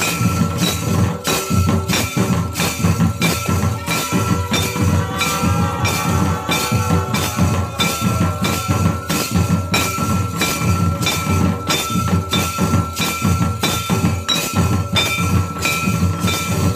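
Santal barrel drum (tumdak'), hand-played on its leather heads in a steady ritual rhythm of about three beats a second, with a metallic clinking kept in time with the beat.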